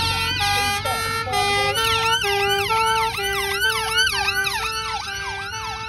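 Sirens of several fire service vehicles sounding together: fast whooping sweeps up and down over a two-tone hi-lo that switches pitch about twice a second, with vehicle engines rumbling underneath.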